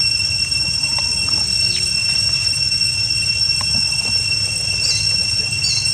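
Steady high-pitched insect drone, two even tones holding without a break, over a low rumble. A couple of short high squeaks near the end.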